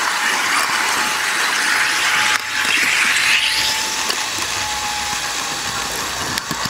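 HO scale model train running along the track: a steady mechanical whir and rattle of small wheels on the rails, with a faint thin whine from about one to five seconds in.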